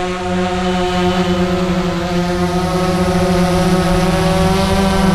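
DJI Phantom 3 Professional quadcopter's motors and propellers spinning up and running before lift-off: a steady, even hum-whine that climbs slightly near the end.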